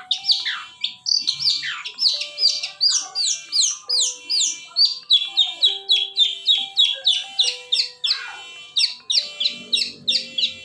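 Long-tailed shrike (pentet) singing in full, energetic song: a fast, unbroken stream of sharp falling notes, about five a second.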